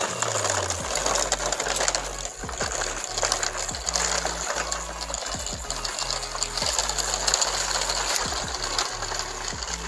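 Plastic toy trucks rattling and clattering as their wheels roll over uneven brick paving, with a low hum underneath that comes and goes.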